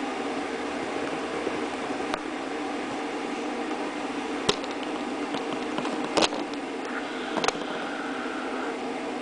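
A steady hum with a few sharp knocks through it, the loudest about six seconds in.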